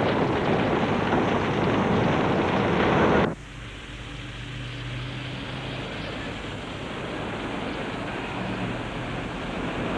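Loud, steady rushing noise from a large oil tank fire being fought. It cuts off abruptly about three seconds in, leaving a quieter outdoor background with a faint low hum.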